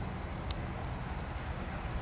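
Socata Rallye 110ST light aircraft's piston engine running at low power as it taxis to its stand: a steady low rumble, with one short click about half a second in.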